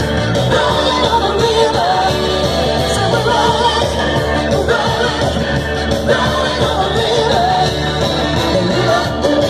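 Loud music with a singing voice, played over large PA speakers.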